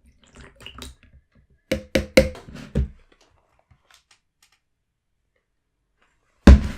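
Handling of a plastic bottle of slime activator and its mixing bowl: a few faint clicks, then four or five sharp taps and knocks about two seconds in, and a loud knock near the end.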